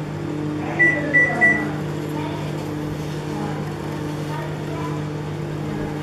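Microwave oven running with a steady hum. Three short high beeps sound about a second in.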